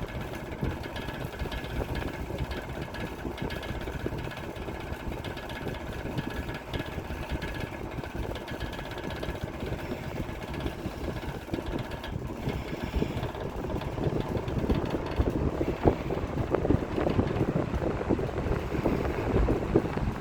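Toastmaster 5337 metal box fan running, a steady motor hum under the rush of air from its blades. The owner thinks the motor needs oiling.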